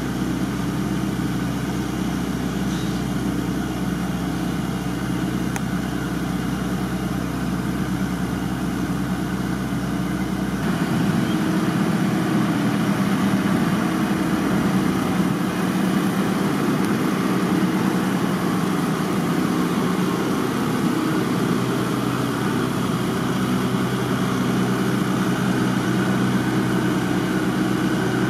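Engine running steadily at an even speed. About ten seconds in, its deep low hum drops away and the sound grows a little louder.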